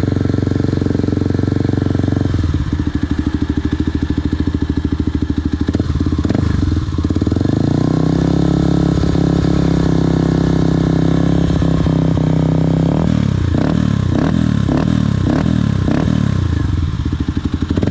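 Yamaha WR155R single-cylinder engine running through an aftermarket Radamel Racing exhaust with its dB killer baffle left out. It idles, is raised to a steady higher rev held for several seconds, then is blipped in a quick run of throttle stabs, about two a second, near the end.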